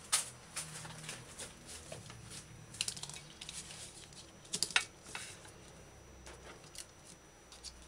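Scattered light taps and clicks of washed vegetables and garlic cloves being set down and moved about on a plastic cutting board.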